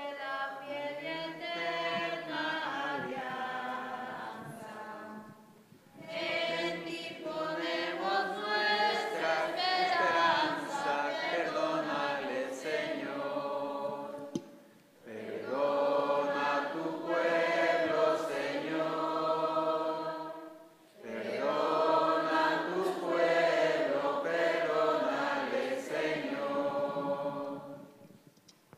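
Congregation singing a hymn together in four long phrases, with a short break for breath between each.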